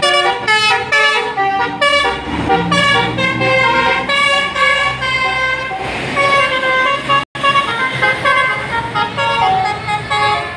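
A bus's basuri horn, a multi-tone melodic horn, playing a quick tune of short notes that change pitch, over the low hum of traffic. The sound cuts out briefly about seven seconds in.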